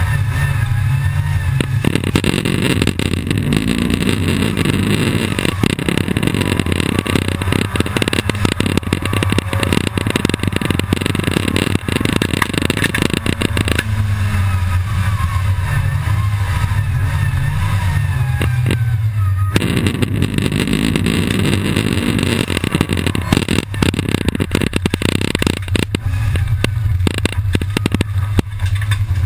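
Supercharged engine of a Mk II Volkswagen Golf GTI race car running hard at racing speed, heard from inside the stripped cabin, its revs climbing through the gears. The sound shifts abruptly about two seconds in, again about fourteen seconds in and near twenty seconds.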